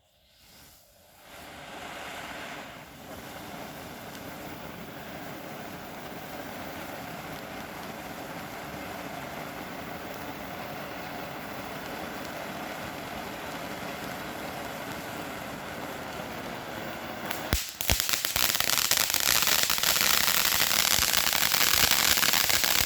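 Small 'mini snow cone' fountain firework spraying with a steady hiss, which about seventeen seconds in breaks into loud, rapid crackling and popping that runs on to the end.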